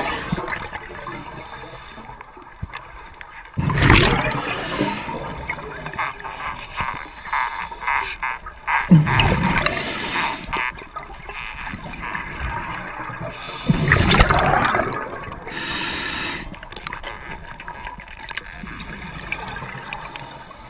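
Scuba diver breathing through a regulator underwater: a loud rush of exhaled bubbles about every five seconds, with quieter breathing noise between.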